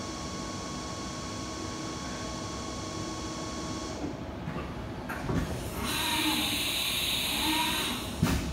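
Haas TM2P CNC mill running: a steady machine whine with several high tones that stops about four seconds in, then a louder hiss from about six to nearly eight seconds in, and a short knock near the end.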